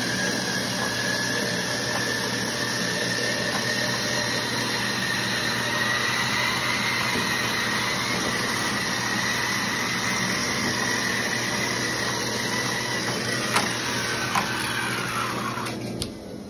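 Horizon T202 treadmill running, its motor whine and belt noise steady, with a high whine that drifts slowly up in pitch. Near the end the whine falls in pitch and stops and the noise dies away as the treadmill slows, with a few sharp clicks just before.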